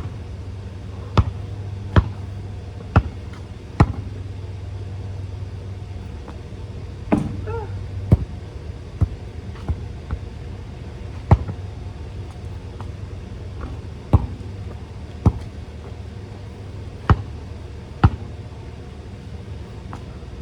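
Basketball bouncing on hard outdoor ground, sharp loud thuds about once a second at first, then at irregular gaps as shots are taken and rebounded. A steady low hum sits under the first third and fades out about seven seconds in.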